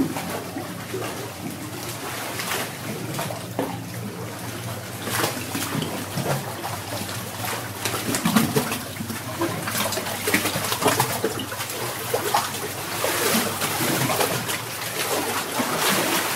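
Sea water lapping and splashing against a small boat's hull and the rock of a sea cave, over the low steady hum of the boat's engine running slowly.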